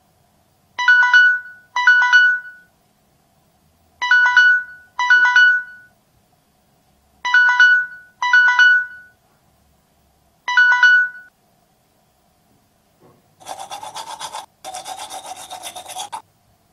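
Electronic alarm beeping: seven short chiming beeps, mostly in pairs about a second apart, then a pause. Near the end, a toothbrush scrubbing against teeth in quick strokes for about three seconds, with one brief break.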